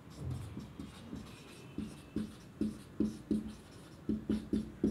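Marker pen writing on a whiteboard: a series of short strokes, starting about two seconds in and coming quicker toward the end.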